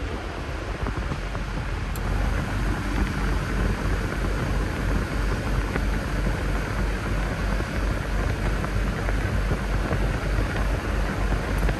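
Truck's dashboard heater/AC blower fan running, a steady rush of air that grows louder in the first couple of seconds as the fan speed is turned up, then holds, over a low rumble.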